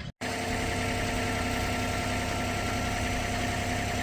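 An engine running steadily at idle, a constant drone with a steady pitched hum.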